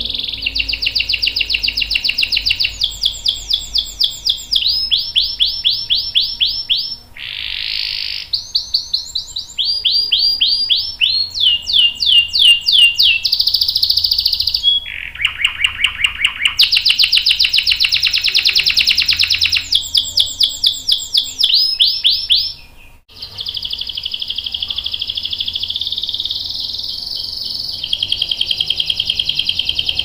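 Domestic canary singing a long, continuous rolling song, one fast trill of repeated notes after another, switching to a new phrase every second or two. There is a brief pause a little past two-thirds of the way through.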